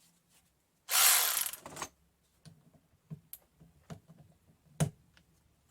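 RUYIKA 3/8-inch cordless electric ratchet running for about a second in reverse against an over-tightened bolt and failing to break it loose, followed by scattered light clicks and a sharper knock near the end.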